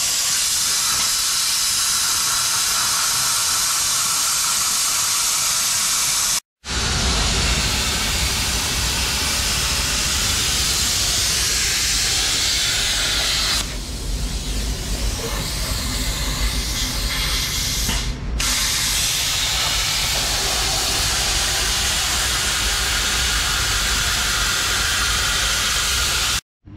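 Handheld plasma cutter cutting through a steel panel: a steady, loud hiss of the arc and air jet. It drops out briefly about six and a half seconds in and sounds duller for a few seconds in the middle.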